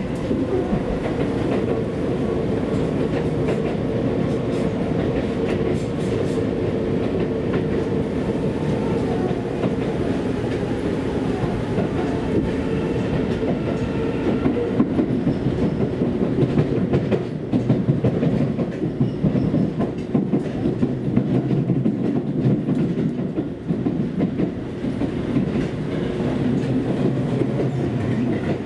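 Seibu Railway electric commuter train running at speed, heard from inside the car: a steady rumble with a faint steady whine that fades out about halfway through, and wheels clacking over rail joints, roughest a little past the middle.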